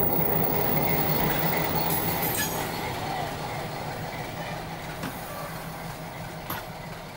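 Diesel locomotive engine idling, a steady low hum that slowly grows quieter.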